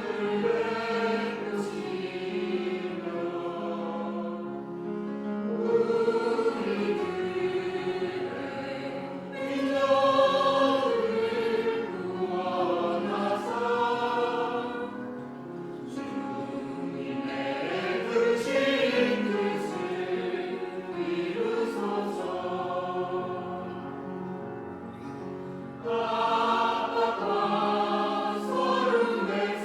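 Church choir singing a sacred anthem, several voice parts holding sustained chords together, swelling louder about ten seconds in and again near the end.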